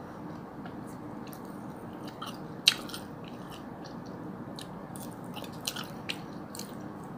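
A person chewing a mouthful of instant noodles, with small mouth clicks scattered through it and one sharper click about two and a half seconds in, over a steady background hiss.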